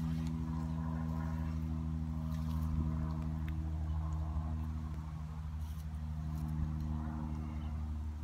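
A steady low drone from an engine or motor running throughout, with a few faint clicks over it.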